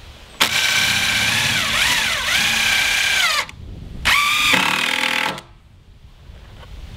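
Ridgid Gen5X 18V cordless impact driver driving a screw into plywood in two runs: about three seconds of motor whine that dips in pitch as it loads up, a short pause, then a second, shorter run that winds down as the screw seats flush.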